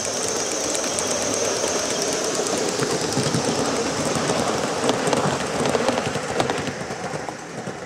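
Gauge 1 live-steam locomotive running past with its train of coaches: a steady high steam hiss over the wheels clicking and clattering along the track, falling away near the end as the train draws off.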